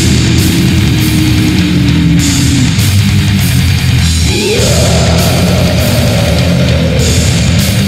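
Old-school death metal with heavily distorted guitars and drums playing at full loudness. About halfway through, a held note slides up and then slowly sinks.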